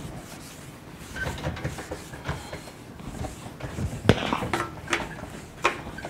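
Whiteboard eraser wiping across the board in a series of short strokes, the loudest about four seconds in.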